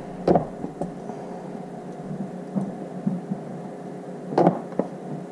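Battery spot welder firing on auto pulse while welding battery cells: two sharp weld snaps about four seconds apart, each followed by a fainter tick, over a steady low hum.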